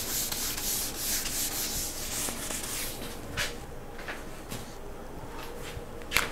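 Whiteboard eraser rubbed back and forth across a whiteboard, wiping off marker writing in rapid strokes that die away about three seconds in.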